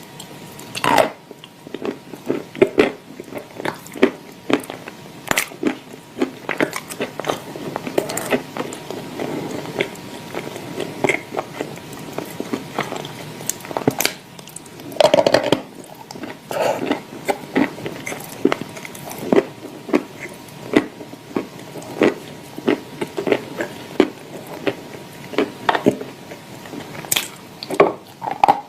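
Close-up chewing of dry clay chunks mixed with clay paste: irregular sharp crunches between softer, mushier chewing, with the loudest cluster about halfway through.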